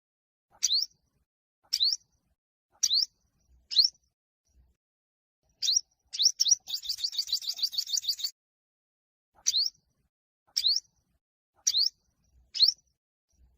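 Olive-backed (yellow-bellied) sunbird singing: short, sharp rising notes about once a second, broken in the middle by a fast trill of about ten notes.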